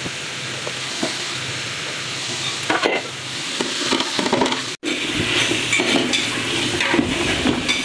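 Chicken and carrots frying in oil in a large metal pot with a steady sizzle. Diced bell peppers are tipped in and stirred with a spatula, with scraping and clicking against the pot busier in the second half.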